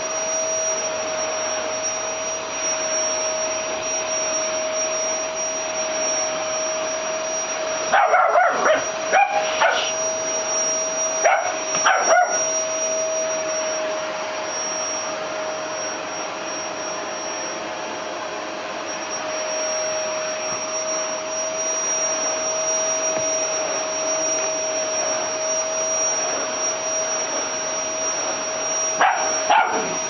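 Volta vacuum cleaner running steadily with a constant whine. A Rottweiler puppy barks at it in two quick clusters of sharp barks about a third of the way in, and again near the end.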